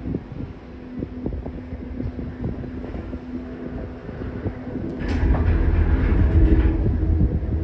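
Disney Skyliner gondola cabin running on its cable: a steady hum with scattered clicks and knocks. About five seconds in, it gives way to a louder low rumble and rattle, as from the cabin's wheels running over guide rollers.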